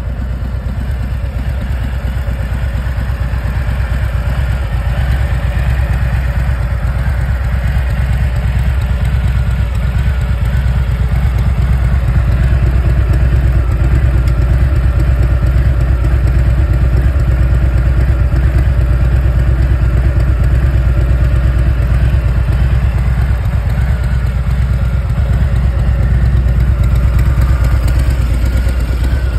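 Harley-Davidson Milwaukee-Eight 107 V-twin idling steadily, growing a little louder over the first few seconds.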